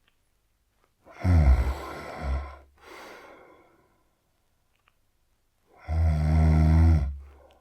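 A man snoring heavily: two loud snores, about a second in and near the end, each with a low buzz, the first trailing off into a softer breath out.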